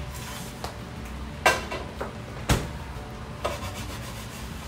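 Kitchen handling sounds at the stove while chicken wings are being seasoned: rubbing and a few sharp knocks and clatters of containers and dishware, the loudest about one and a half and two and a half seconds in, over a low steady hum.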